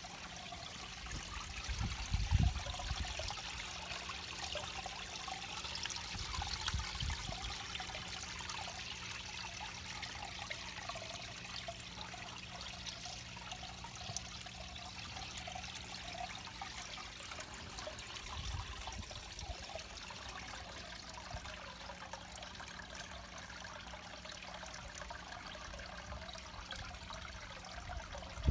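Water trickling and splashing steadily as it pours from pipe outlets into a garden pond's bog filter, with a few dull low thumps.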